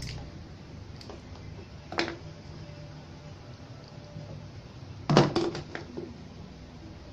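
Handling clicks, then about five seconds in a quick clatter of metal hand tools as a pair of pliers is picked up from a pile on the bench.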